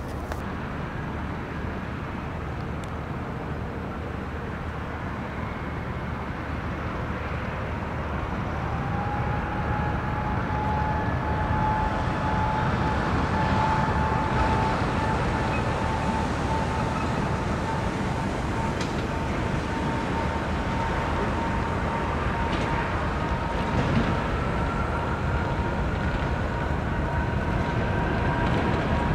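Jet airliner engines running with a steady rush, growing louder after about eight seconds, and a thin engine whine that slowly rises in pitch.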